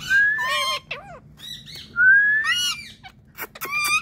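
Indian ringneck parakeet calling: two long rising whistled calls, one just after the start and one about two seconds in, with short chirps between them and a quick run of sharp, clicky calls near the end.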